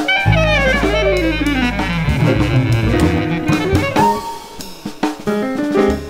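Bass clarinet solo with a jazz-leaning nonet and drum kit. Over a held low bass, the music slides downward in pitch during the first two seconds, then breaks into short, choppy notes with sharp drum hits.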